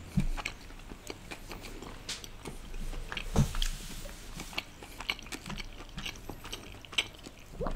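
A person chewing a mouthful of food close to the microphone: irregular wet mouth clicks and smacks, with a louder one about three and a half seconds in.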